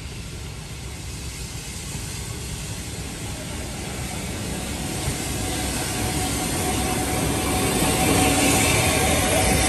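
Austerity 0-6-0 saddle tank steam locomotive and its carriages approaching along the line and passing close by, a rumbling noise that grows steadily louder and is loudest near the end.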